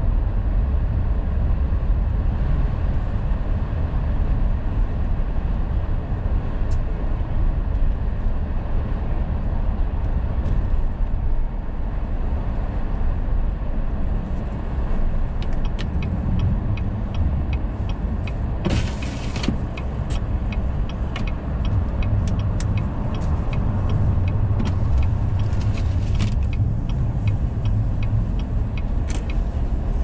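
Steady low rumble inside a car driving slowly on a snow-covered road, with engine and tyre noise. About halfway through a quick, regular ticking starts and keeps on, and a short loud whoosh cuts across near two-thirds of the way.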